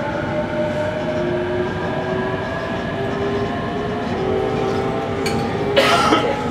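Inside a JR Kyushu 817 series 3000 electric train under way: the Hitachi IGBT-VVVF traction motors whine in several steady tones, one of them slowly rising as the train gathers speed, over the rumble of the wheels on the rails. Near the end a short, loud hiss cuts in for about half a second.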